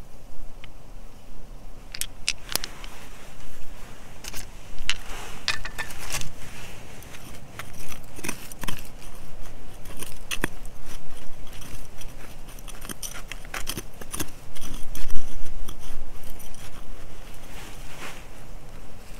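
A small metal hand tool scraping and picking through dry, gravelly soil, with many irregular sharp clicks of metal striking small stones. It starts about two seconds in and is at its busiest a little past the middle.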